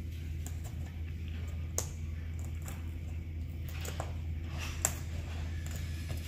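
A few sharp clicks as plastic push pins are handled and pressed into a fabric-covered board, the loudest near the end, over a steady low hum.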